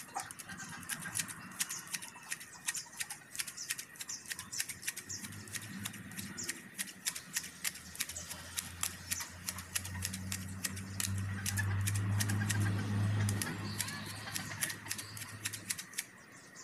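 Hand grass shears with wooden handles snipping carabao grass, giving repeated sharp clicks of the blades, a few a second. A low hum builds up through the middle, is loudest a little past halfway and stops shortly before the end.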